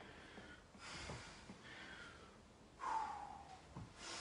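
A man breathing hard while exercising: a series of faint, sharp breaths in and out, with a short voiced exhale that falls in pitch about three seconds in.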